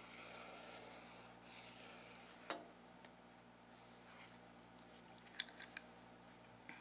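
Faint rubbing of hands and long fingernails over a notepad page, with one sharp tap about two and a half seconds in. Near the end come a few quick ballpoint pen strokes scratching on the paper.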